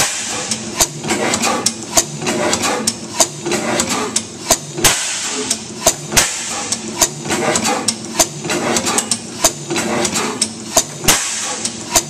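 15 HP St. Mary's sideshaft hit-and-miss gas engine running, its drop-cam igniter and mechanical valve gear clicking sharply about two times a second over the engine's rumble, with a few louder bursts along the way.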